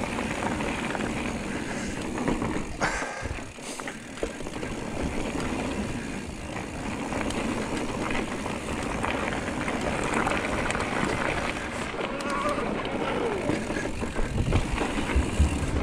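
Giant Trance E+3 electric mountain bike being ridden down a trail: a steady rush of tyre and riding noise with a few sharp knocks and rattles from the bike.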